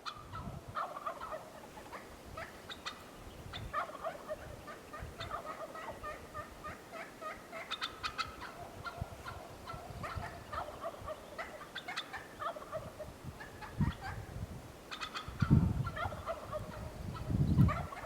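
Wild turkey gobbling again and again, in rapid rattling bursts. Low rumbles break in near the end.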